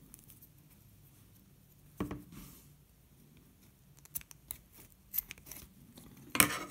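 Scissors cutting string: a sharp snip about two seconds in, a few lighter clicks of the blades, and a louder run of clicks near the end.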